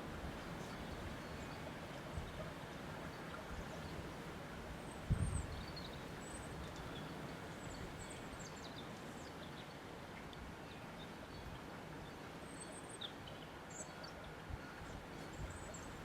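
Steady wind noise, with faint, scattered high chirps of small birds and a brief low thump about five seconds in.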